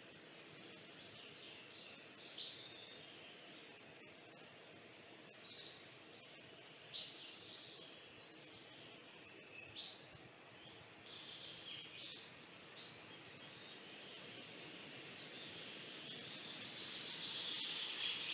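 Faint background noise with four short, sharp, high chirps spread through it, and a swell of hiss near the end.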